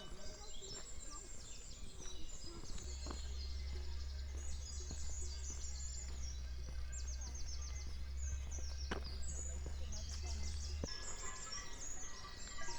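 Small birds chirping and singing, many short high calls and trills overlapping, over a steady low rumble that sets in about three seconds in and stops near the end.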